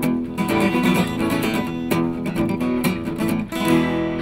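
Acoustic guitar strummed steadily in the song's closing bars, ending on one last chord struck near the end and left to ring out.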